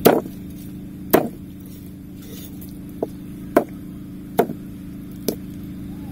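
Meat cleaver chopping a raw beef leg on a wooden chopping board: six sharp strikes at uneven intervals, the first two the loudest, over a steady low hum.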